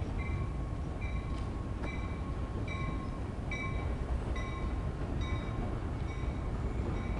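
Train of autorack freight cars rolling past close by: a steady low rumble, with a high ringing tone that repeats a little more than once a second.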